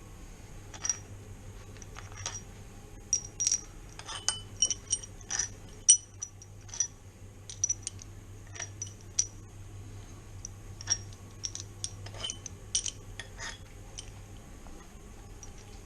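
Irregular light metallic clinks and taps of steel hand tools and engine parts such as bolts being handled and set down, each with a short bright ring.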